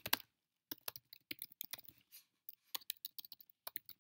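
Typing on a computer keyboard: an irregular run of keystrokes as a search term is entered, starting under a second in.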